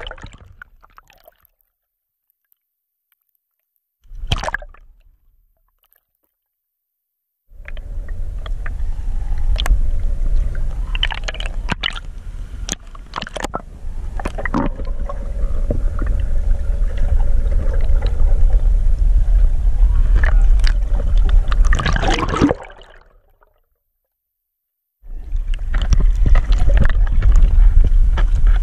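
Muffled water noise from a camera underwater: a deep rumble with rushing, gurgling water and scattered knocks. It is cut by two stretches of silence, the first broken once by a short burst.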